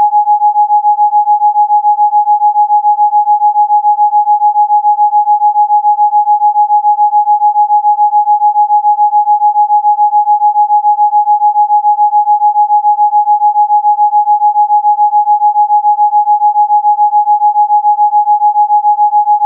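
Electronically generated Rife frequency: a single steady pure tone a little under 1 kHz, held without change, its loudness pulsing quickly and evenly.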